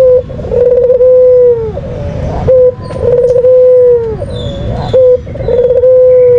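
White Barbary dove (puter putih) cooing in a repeating two-part call: a long steady coo that drops in pitch at its end, then a short clipped coo, the pair coming three times about every two and a half seconds.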